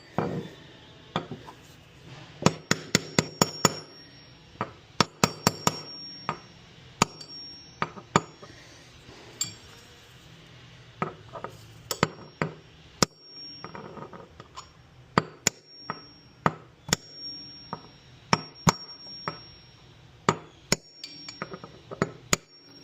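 Steel hammer striking a socket used as a driver to tap a new drum bearing into the bearing housing of a Samsung front-load washer. The taps are sharp and irregular, some in quick clusters, many with a short metallic ring.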